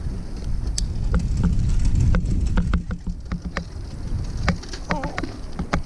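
Wind rumbling on the camera microphone and tyres running over a bumpy sandy dirt trail as an electric fat bike is ridden, with scattered rattles and clicks from the bike over the ruts.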